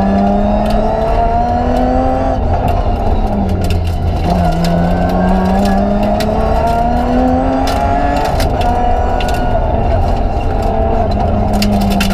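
BMW 325 Group A rally car's straight-six engine heard from inside the cabin, revving up through the gears and dropping back several times as the car accelerates and slows between corners, with scattered sharp clicks.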